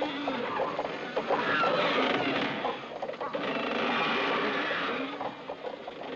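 Lifeboat falls running through the davit blocks as the boat is lowered: a busy run of creaks and squeaks.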